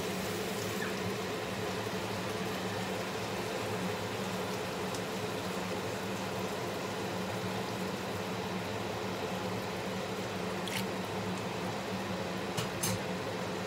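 Steady hum of a kitchen range hood fan, with a wok of chicken and vegetables simmering on a gas burner beneath it. A few light clicks near the end.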